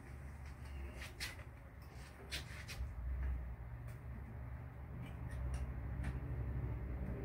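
Scattered light clicks and taps of parts being handled as a fuel line is fitted to an engine, over a low rumble of clothing brushing right against the microphone that grows louder from about three seconds in.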